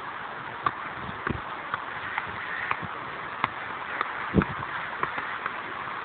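Irregular thuds and light taps of a football being juggled and touched, over a steady background hiss; the loudest thud comes about four and a half seconds in.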